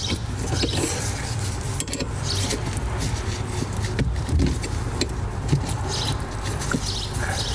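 Small metallic clicks and rustling as a spanner and gloved hands work at the gear selector rod linkage under the car, over a steady low hum.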